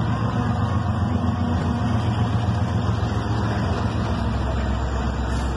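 Diesel freight locomotives running past at close range: a steady low engine drone.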